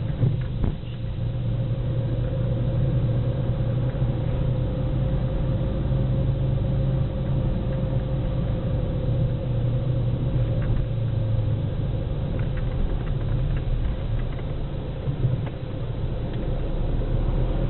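Car engine and road noise heard from inside the cabin while driving: a steady low drone with a faint steady hum above it.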